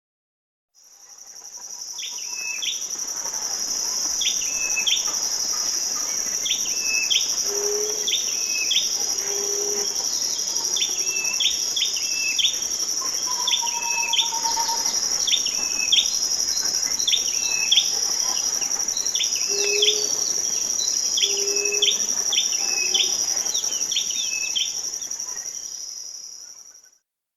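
Tailorbird (Orthotomus) calling: short sharp chirps in two strokes, repeated about once a second. Under them runs a steady high-pitched insect drone. The track fades in about a second in and fades out near the end.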